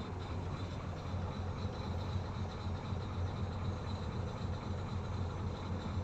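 Caterpillar 320 excavator's diesel engine running steadily with a low, even hum.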